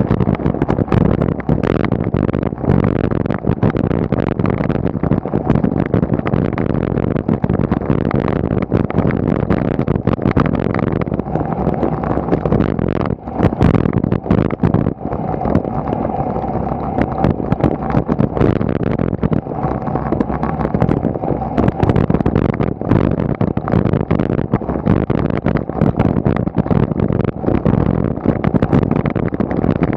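Wind buffeting and road rumble on a bike-mounted action camera while cycling uphill, with frequent short knocks and crackles from the road surface and mount. A car overtakes close alongside at the start.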